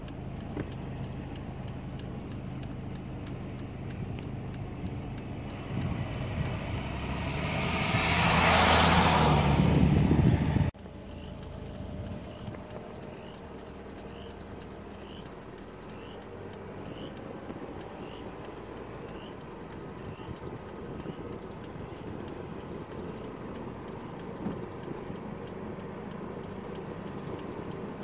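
Vehicle engine hum and road noise. A loud rushing noise builds over about five seconds and cuts off abruptly partway through. After that a quieter, steady driving hum goes on, with a faint high chirp repeating a little more than once a second for several seconds.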